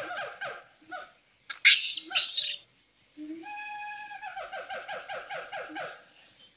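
Monkey calls: a rapid chattering run of short 'ah-ah-ah' calls, about seven a second, broken about two seconds in by two loud, harsh screeches, after which the same chattering run comes again.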